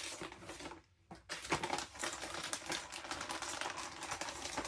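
Plastic bags of latex balloons being handled, a dense run of crackling and rustling with a short pause about a second in.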